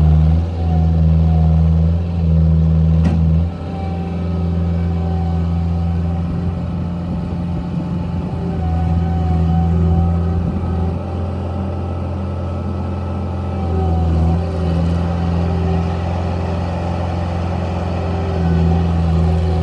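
Scattrack 1350 skid steer loader's engine running steadily, its speed and load rising and falling as the machine works. It is louder for the first few seconds and drops back a little after a sharp click about three seconds in.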